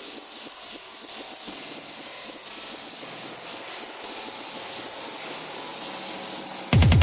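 Intro of a 155 BPM electronic trance track: a rhythmic noise texture, mostly hiss, with no bass. Near the end a kick drum and bass come in loudly.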